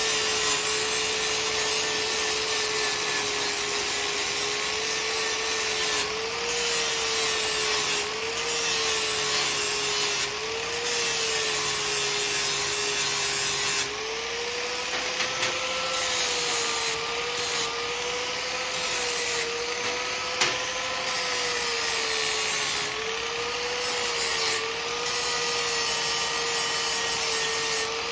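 Angle grinder with a flap disc grinding the coating off metal loop pieces: a steady motor whine that dips slightly under load, with a harsh grinding hiss that stops and starts as the disc is pressed on and lifted off, about ten times.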